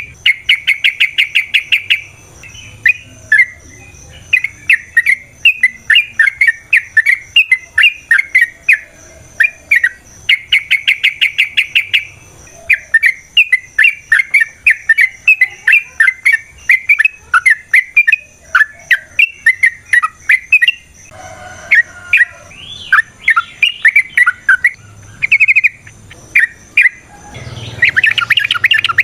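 Yellow-vented bulbul (trucukan) singing a long, continuous chattering song of quick bubbling notes, broken three times by dense rapid trills: near the start, about ten seconds in, and near the end.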